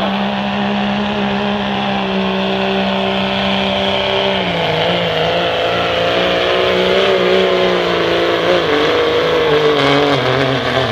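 Diesel pickup truck engine held at high revs under full load while pulling a weight-transfer sled. Its pitch holds steady, dips slightly about four seconds in, then wavers until it falls away at the end.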